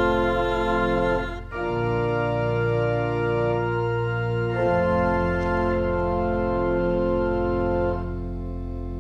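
Church organ holding long sustained chords, moving to a new chord about one and a half seconds in and again about halfway through, then dropping softer near the end.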